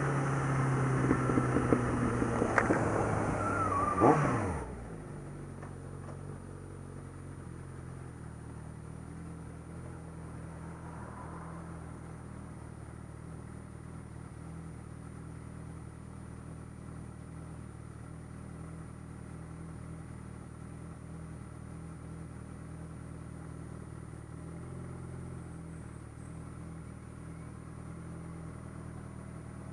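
Suzuki GSX650F's inline-four engine and exhaust slowing from a run, its revs falling sharply about four seconds in. After that it idles steadily.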